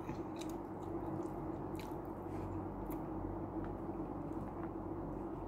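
Eating by hand: faint chewing and soft mouth noises with scattered small clicks as fingers pick food from a plastic container, over a steady low hum. A sharper click comes at the very end.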